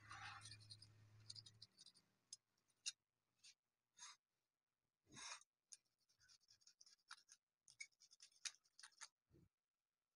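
Faint, intermittent scratching and small clicks from a hand scraping at the surface of a polished black stone tombstone around its gold-painted lettering.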